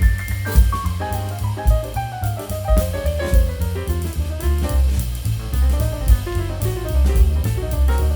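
Background music: a jazz-style tune with a melody line over drum kit and bass, at a steady beat.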